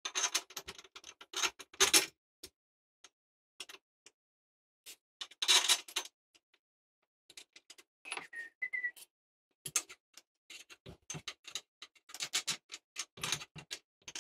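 Short runs of metallic clicking from a wrench tightening nuts onto the bolts that hold a portable table saw to its stand, with pauses between runs and a brief high squeak about eight seconds in.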